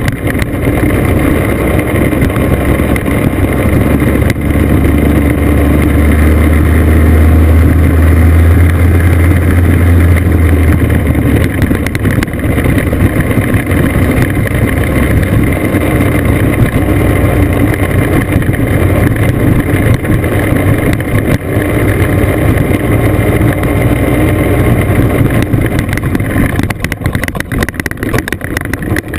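Classic scooter engine running steadily while riding along a gravel road, its drone deeper and louder for several seconds early on before settling back. Wind and road noise run underneath.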